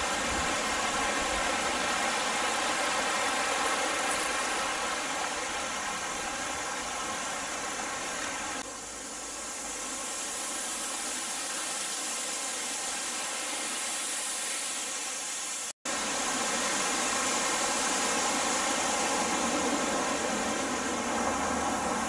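Steady rush of falling water from a small waterfall spilling over mossy travertine rock. The sound cuts out for an instant about two-thirds of the way through.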